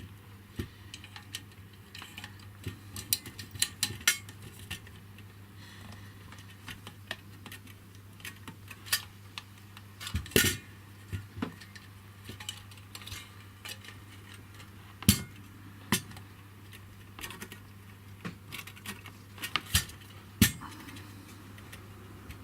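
Small metal parts and hand tools clinking and tapping irregularly while a mains cable is worked through a solder pot's cable clamp, with a few louder knocks, over a steady low hum.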